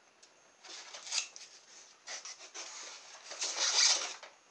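Rubbing and scraping of a model plane's fuselage against its moulded polystyrene packaging insert as it is pulled out. There are short scrapes about a second in and a louder, longer scrape near the end.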